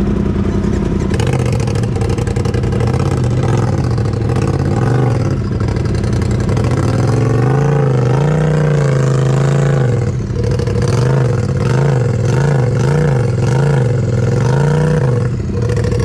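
Off-road buggy engine revving in rising and falling surges as it claws up a steep hill, with about five quick throttle blips in a row in the last few seconds, over a steady idling engine.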